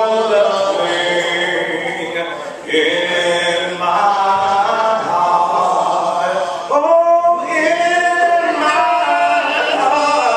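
A church congregation singing a hymn a cappella, many men's and women's voices without instruments. The notes are held long, with short breaks between phrases.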